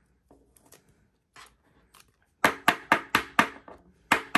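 Rigid plastic card top loaders clacking against a tabletop as cards are handled and sleeved. Faint clicks come first, then about half a dozen sharp taps in quick succession about two and a half seconds in, and one more near the end.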